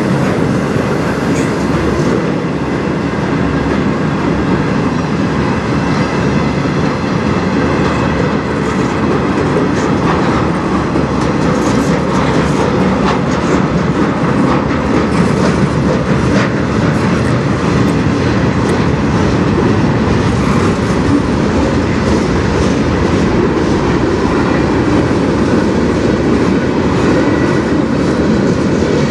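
Freight train cars rolling past: a steady rumble of steel wheels on rail, with scattered clicks as the wheels cross rail joints.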